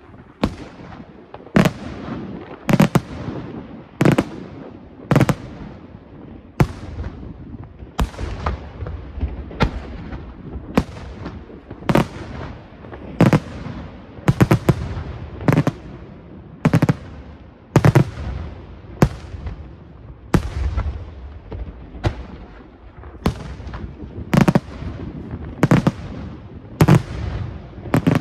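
Aerial fireworks shells bursting overhead in steady succession, about one sharp bang a second. Each bang is followed by a rumbling echo that dies away.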